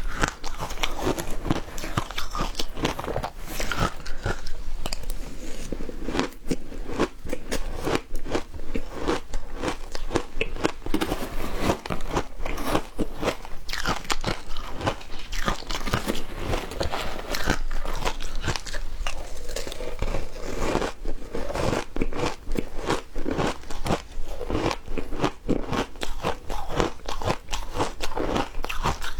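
Frozen matcha ice being bitten and chewed: a dense, irregular run of crunching and cracking.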